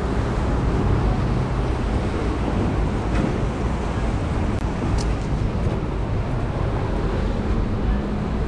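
Steady city street traffic noise: a continuous rumble and hiss of vehicles on wet roads.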